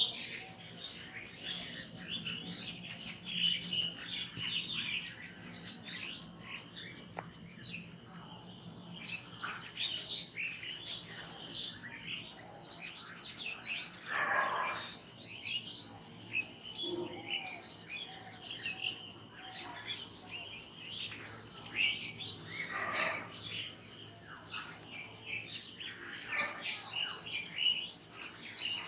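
Birds chirping, many short calls one after another with a few louder calls among them.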